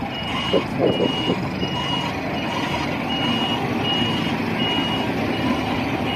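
Electronic toy truck sounding a reversing-beep alarm, a steady high beep repeating about three times every two seconds, over a continuous whirring motor or engine-effect noise. A few light knocks of handling come in the first second or so.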